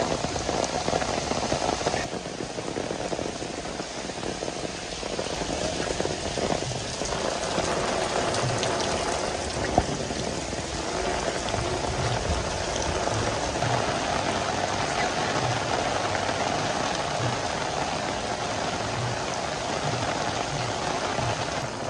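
Heavy tropical rain falling steadily, a dense even hiss of a downpour. There is a single sharp tap just under ten seconds in.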